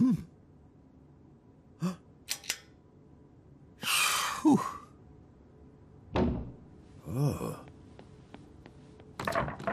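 A cartoon man's wordless vocal sounds: short grunts, then a breathy sigh about four seconds in and another a couple of seconds later. Between them come two quick clicks about two seconds in, in an otherwise quiet room.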